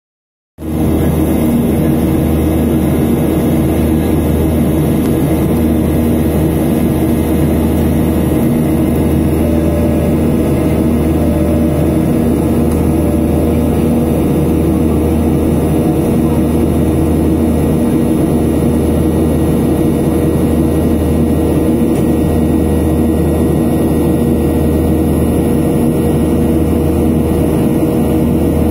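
Airliner cabin noise heard from inside the cabin: a steady drone of engines and rushing air, with a low rumble and a constant hum, no change in pitch.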